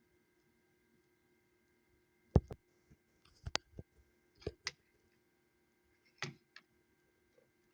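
Sharp clicks and taps of small plastic multimeter parts being handled and fitted during a repair. About six of them come scattered over a few seconds, starting a couple of seconds in, the first the loudest, over a faint steady hum.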